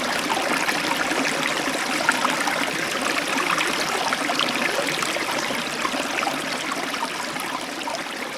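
A small river flowing over stones: a steady rush of water full of small splashes, easing off slightly near the end.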